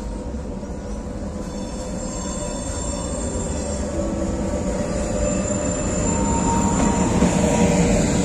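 Moroccan Z2M double-deck electric multiple unit approaching and passing close by, its rumble growing steadily louder, with a steady high whine and squeal over it.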